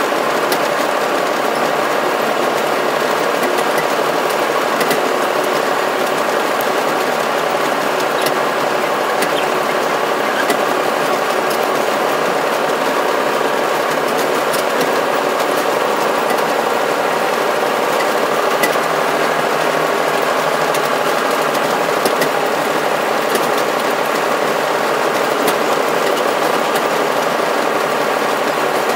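Locomotive running steadily, heard from inside the cab, with light clicks and rattles scattered through it.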